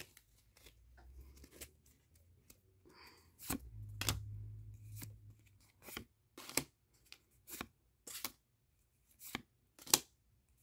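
Pokémon trading cards being flipped through one at a time: short crisp snaps of card against card, roughly one every second in the second half, with soft rustling handling near the middle.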